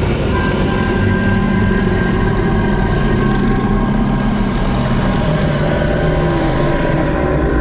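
Horror sound-effect drone: a dense low rumble with thin, steady high tones held over it, and a lower tone sliding slowly downward in the second half.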